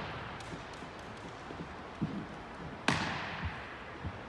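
A single sharp stomp of a drill shoe on a hardwood gym floor about three seconds in, echoing through the large hall, with a few softer footfalls around it.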